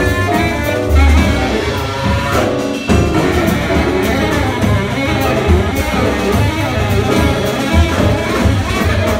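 Live jazz from a quartet of baritone saxophone, piano, double bass and drums, playing continuously with a prominent low bass line and drum kit.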